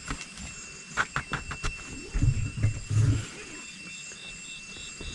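Insects in hillside vegetation: a steady high thin whine throughout, joined about halfway through by a pulsing chirp repeating about three times a second. A few sharp clicks come about a second in, and some low muffled sounds a little after two seconds.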